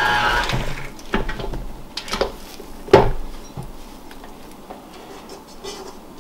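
Background music fades out, then a few clanks and knocks of a stainless steel stand-mixer bowl being handled while dough is pushed down inside it by hand. The loudest knock comes about three seconds in.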